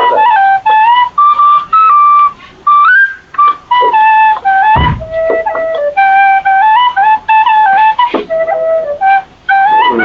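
Background music: a single high melody line of short notes stepping up and down, in a flute-like tone.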